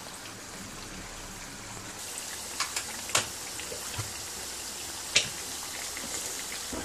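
Churro dough deep-frying in hot oil: a steady sizzle, with a few sharp clicks, the loudest about five seconds in.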